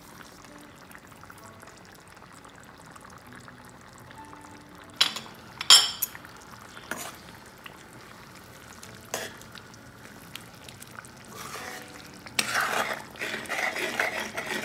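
Metal spoon clinking against a kadai pan a few times, sharp and short, then stirring thick chicken curry gravy with a louder steady noise over the last two or three seconds.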